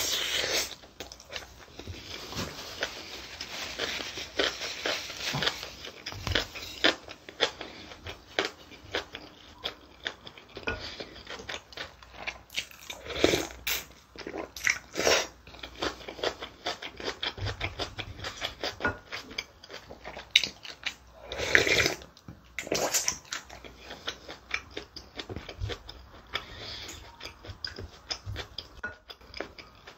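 Close-miked eating: chewing and mouth smacks on mouthfuls of bibimbap, with spoon clicks against the bowl. A few louder sips of water kimchi broth come from a wooden ladle, about halfway through and again around two-thirds of the way in.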